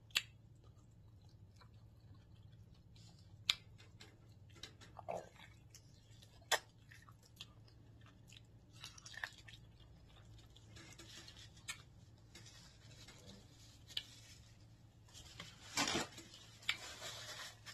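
Close-miked eating: chewing and biting into corn on the cob, with scattered sharp clicks over a faint steady low hum. A louder burst of noise comes near the end.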